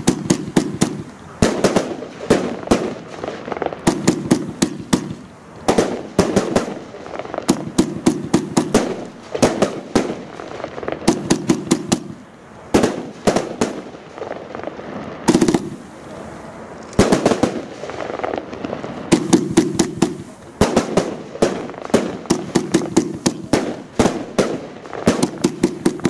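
Fireworks battery (cake) firing volley after volley: quick runs of sharp shots and bangs, coming in groups every second or two, with a brief pause about two-thirds of the way through.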